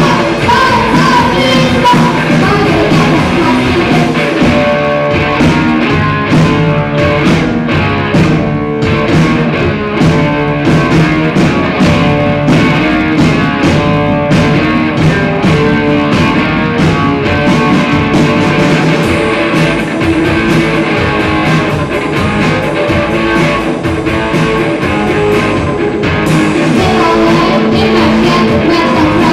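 Live rock band playing: electric guitar, bass guitar and a drum kit, with singing into a microphone.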